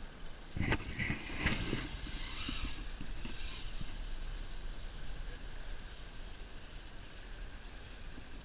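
Small waves washing onto a sandy beach, with a low wind rumble on the microphone. A cluster of knocks and rustles comes between about half a second and two seconds in.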